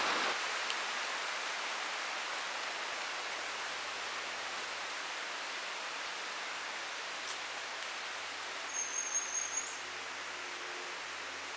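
Native bush ambience: a steady rush of flowing stream water. A bird gives one short, high, rapid trill about nine seconds in, and faint high chirps tick evenly, about three a second.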